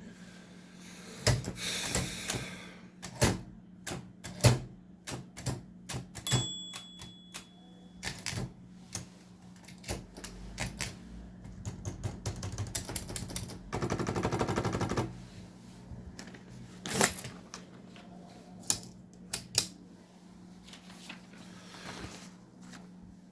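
1961 Olympia SM3 manual portable typewriter being worked: irregular sharp mechanical clacks, a short ringing tone about six seconds in, and a quick, even ratcheting run about fourteen seconds in.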